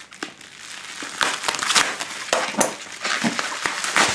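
Plastic wrap and bubble wrap crinkling and crackling as a package is torn and pulled open by hand, in irregular bursts that get louder about a second in.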